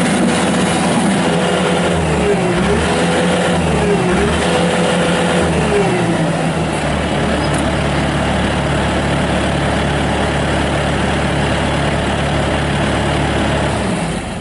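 Bobcat S300 skid steer's Kubota turbo diesel engine running at high revs. Its pitch dips briefly and recovers twice, then it is throttled down to a lower steady speed. The sound falls away near the end.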